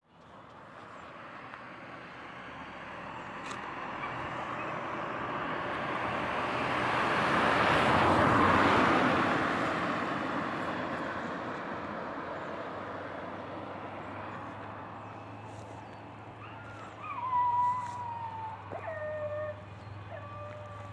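A motor vehicle passes by, its noise swelling to a peak about eight seconds in and then slowly fading. Later, several short animal calls, each falling in pitch, sound over a steady low hum.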